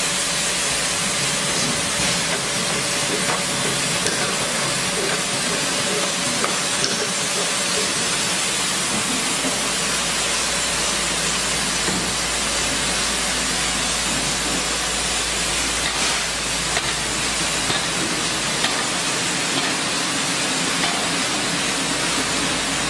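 Automatic motor-oil jug filling, capping, induction-sealing and labeling line running: a steady hiss of machinery noise with a few faint ticks. A faint steady tone runs through it and stops about halfway.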